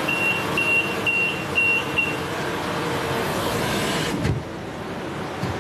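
Electronic beeper sounding five short, high beeps at about two a second, over a steady hiss.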